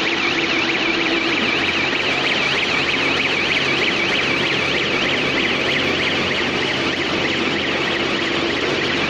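A warbling electronic alarm tone, sweeping rapidly up and down several times a second, over the steady noise and hum of a running machine.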